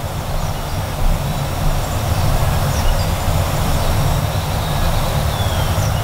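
Steady low rumble and hiss, with a few faint, high bird chirps.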